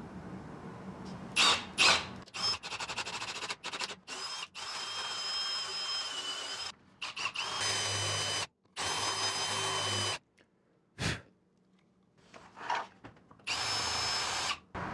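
A power drill running in four short bursts of steady whine, each a second or two long, after two sharp knocks and a rattle.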